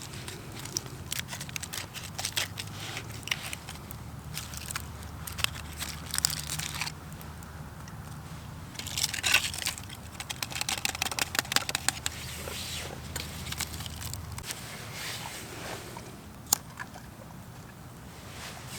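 Irregular crinkling, crunching and rustling from camp gear being handled, with a low steady hum underneath that cuts off about fourteen seconds in.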